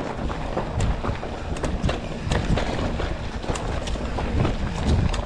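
Canyon mountain bike ridden along a dirt trail: wind buffeting the action camera's microphone over a rumble of tyres on dirt, with irregular clicks and knocks from the bike rattling over rough ground.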